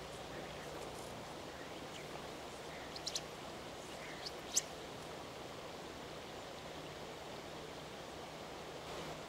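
Steady rush of river water flowing, with a few short, high chirps around three seconds and again around four and a half seconds in.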